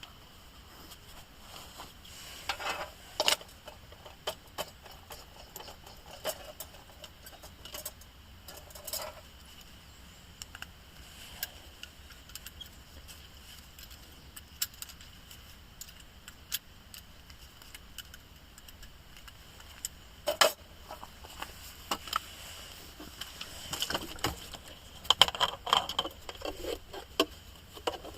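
Small objects being handled: scattered light clicks and clinks, bunched into a few short clusters, with a busier stretch near the end.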